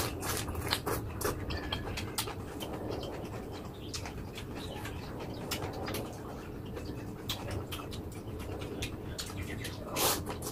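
Close-up mouth sounds of a person eating Khmer rice noodles (num banh chok) and raw leafy greens: wet chewing with many small clicks, and a louder slurp as noodles are drawn in near the end.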